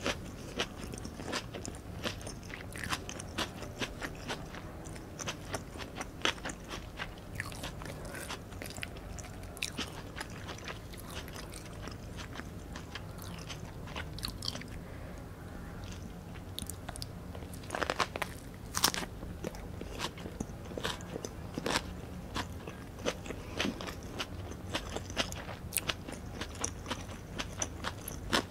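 Close-miked chewing and biting of Vietnamese fresh spring rolls, rice paper wrapped around turkey ham and lettuce: wet, crunchy mouth sounds with many small crackles, and a few louder crunches about two-thirds of the way through.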